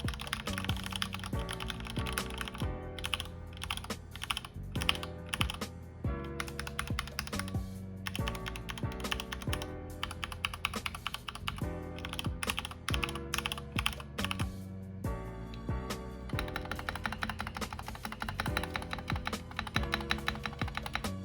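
Typing on a Kemove Shadow 60% mechanical keyboard with Gateron linear switches: a rapid, uneven stream of keystroke clacks, with background music underneath.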